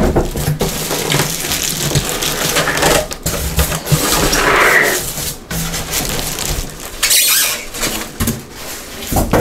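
Plastic wrap crinkling and rustling while white foam packing blocks rub and scrape as they are pulled off a new popcorn machine during unpacking.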